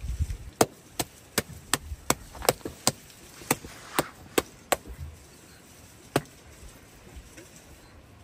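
A quick run of sharp knocks, about two or three a second, that stops about five seconds in, with one last knock a second later. Dull low thuds at the very start.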